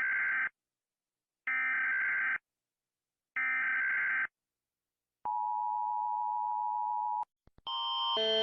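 Emergency Alert System header: three bursts of harsh, screeching digital data tones, about a second each with a second's gap between them. A steady attention tone follows for about two seconds. Near the end a different alarm starts, stepping between several tones and growing louder.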